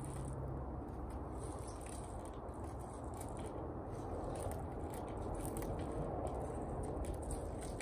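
Soil being handled and worked back around a bonsai's roots in its pot, heard as faint, irregular scraping and crackling over a steady low background noise.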